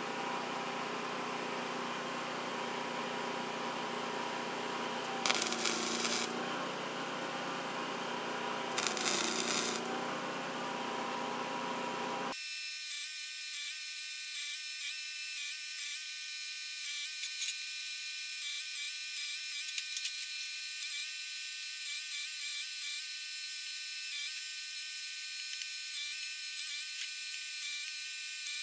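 Two short bursts of wire-feed welding crackle, about five and nine seconds in, each about a second long, as tack welds go onto a sheet-metal battery box over a steady hum. About twelve seconds in the sound switches abruptly to a thin, high, steady buzz with faint crackles.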